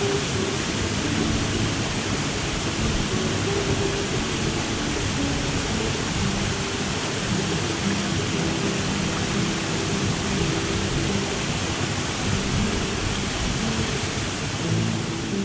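Waterfall pouring into a rocky plunge pool: a constant, even rushing roar of falling water.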